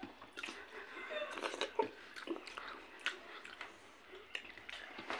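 Close-up eating sounds: chewing and mouth smacks with scattered short clicks, as food is eaten by hand.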